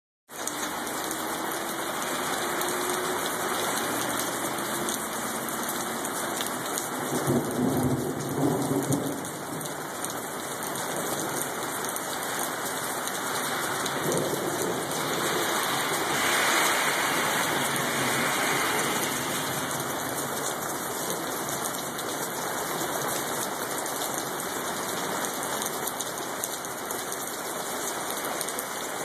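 Steady rain falling on a wet street and pavement, an even hiss throughout. About seven to nine seconds in a louder low rumble rises over it, and the hiss swells again briefly in the middle.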